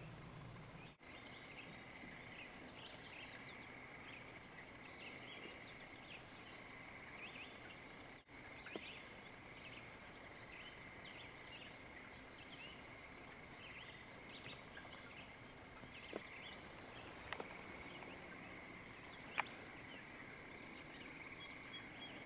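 Faint outdoor chorus of small birds chirping, many short scattered calls over a steady high-pitched drone, with a few sharp clicks, the loudest about 19 seconds in.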